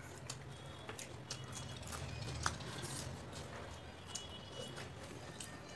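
Eating by hand: soft chewing and small clicks of fingers and food against plates, with one sharper click about two and a half seconds in, over a low steady hum.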